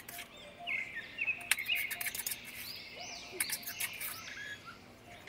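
Small birds chirping over and over, with a few sharp clinks and scrapes of a metal spoon against a ceramic bowl as paste is scraped out; the sharpest clink comes about a second and a half in.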